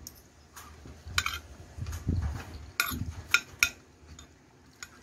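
A metal spoon clinking and scraping against a ceramic plate while scooping rice and curry, with about five sharp clinks and soft chewing between them.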